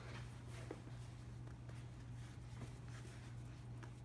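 Hands rolling and pressing floured potato dough on a wooden cutting board: soft, scattered rubbing and light scratchy taps over a steady low hum.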